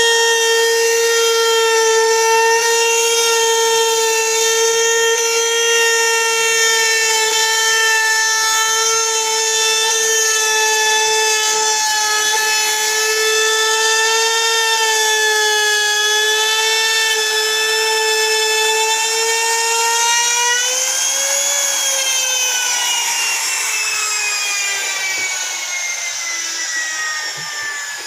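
Handheld trim router running with a steady whine as it cuts a groove along a wooden door panel. About 21 seconds in, the pitch rises briefly, then falls steadily and gets quieter as the motor winds down.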